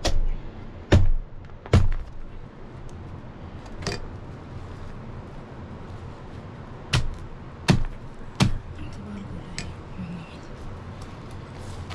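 A heavy knife chopping meat: about seven sharp blows at uneven spacing, with a pause of about three seconds midway.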